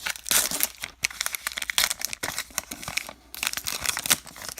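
Plastic wrapper of a baseball card pack crinkling as it is handled, a dense run of short crackles.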